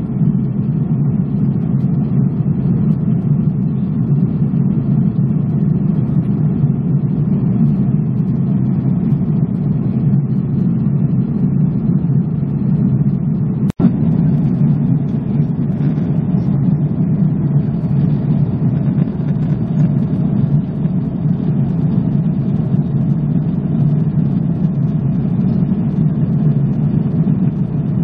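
Steady low roar inside the cabin of an Airbus A330-300 airliner at cruise altitude: engine and airflow noise. The sound drops out for an instant about halfway through.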